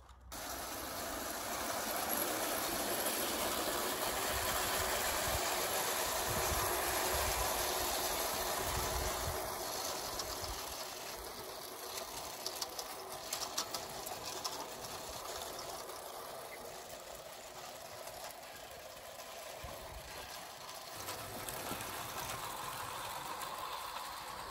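Bassett-Lowke clockwork 4-4-0 tinplate locomotives running with short tinplate trains: the steady whirr of the wound-up spring motor and the rattle of tinplate wheels on the rails. A quick run of sharp clicks comes about halfway through.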